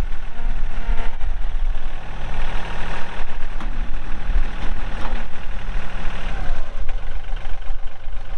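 Compact diesel tractor engine of a John Deere 2032R (32 hp) running steadily.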